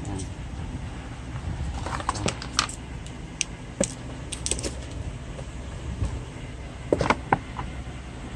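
Light clicks, taps and scrapes of a cardboard smartphone box being handled and its lid taken off, over a steady low hum. The sharpest taps come about two seconds in, around four seconds in and about seven seconds in.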